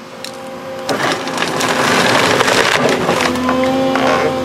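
JAK-400 tree shear's blades closing through a tree trunk: the wood cracks and splinters with many sharp snaps, loudest from about a second in. Underneath runs the steady hum of the Volvo 210 excavator's engine and hydraulics.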